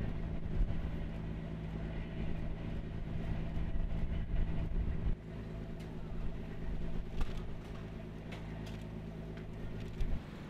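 Engines running steadily with a low hum. About halfway through the sound drops suddenly to a quieter engine hum, with a few light sharp clicks and clanks near the end.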